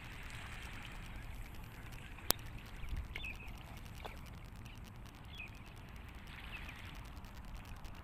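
Calm sea water lapping gently at shoreline rocks, with a low wind rumble on the microphone. A single sharp click about two seconds in, and a few faint short chirps scattered through.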